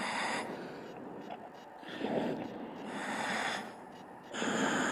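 Diver breathing in a diving helmet: loud rushing breaths, each lasting a second or more and coming every two to three seconds.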